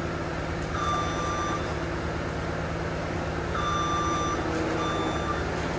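A machine's engine running steadily while its reversing alarm beeps three times: once about a second in and twice more in the second half.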